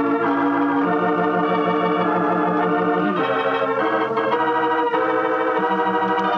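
Organ music bridge between radio-drama scenes: sustained chords that change every second or so, with a low note pulsing about five times a second in places.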